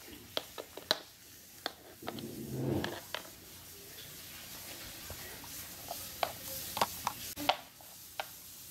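Small plastic toy figurines being set down and tapped on a wooden tabletop, a scattering of light clicks, with a brief low rumble about two seconds in.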